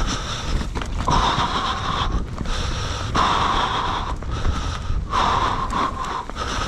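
A rider's heavy, laboured breathing close to the microphone: long, hoarse breaths of about a second each, about one every two seconds. A steady low rumble of wind on the microphone runs underneath.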